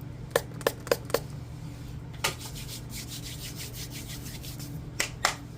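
A spray bottle spritzed four quick times onto hands, then hands rubbing together for about two seconds, with two more sharp spritz-like clicks near the end.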